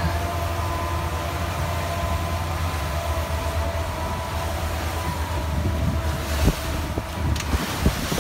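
Speedboat's twin outboard motors running at speed, a steady low drone with a whine over it, and wind buffeting the microphone. About six and a half seconds in the whine fades as the boat slows, and knocks and splashes of water against the hull come through.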